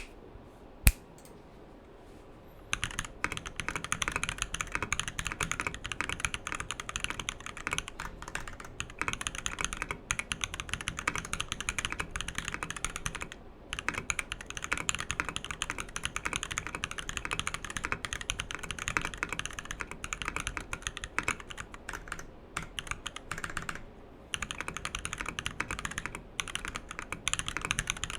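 Custom mechanical keyboard with lubed Durock POM switches in a brass plate and PBT keycaps, typed on fast and continuously, with high-pitched clacks and a few short pauses. Before the typing starts there is a single sharp click about a second in.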